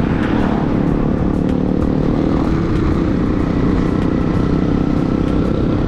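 Suzuki Smash 115's single-cylinder four-stroke engine running at a steady cruise while riding.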